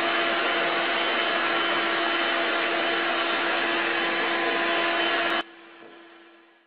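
Upright stick vacuum cleaner running with a steady whoosh and a constant hum, its nozzle being run over a cat's fur. About five and a half seconds in there is a click and the sound drops sharply, then fades away.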